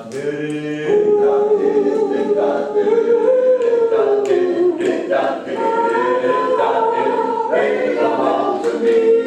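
Male a cappella doo-wop group singing a wordless opening in close harmony, held chords moving from note to note with no instruments.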